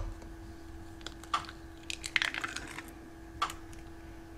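Eggshell being cracked open and pulled apart over a ceramic bowl: a few light clicks, a quick cluster of shell snaps about two seconds in, and one more click near the end. A faint steady hum runs underneath.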